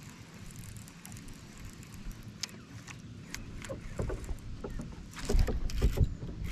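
Water lapping against a boat's hull, with a few light clicks from a baitcasting reel during the retrieve. Heavier thumps and knocks on the boat come a little after five seconds in.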